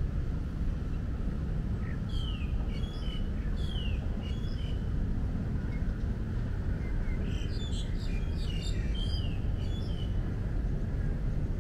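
Small birds chirping in short descending calls, a few about two to four seconds in and a busier run around eight to nine seconds, over a steady low rumble.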